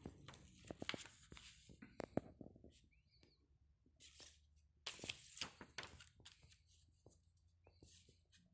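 Paper instruction leaflet being unfolded and handled: faint rustling and crinkling with a quick run of light clicks and crackles in the first two seconds, and a longer rustle about five seconds in.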